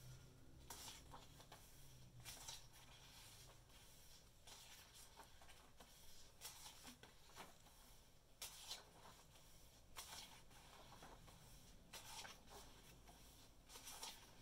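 Faint rustles of a paperback book's paper pages being turned by hand, a brief page flip about every one and a half to two seconds.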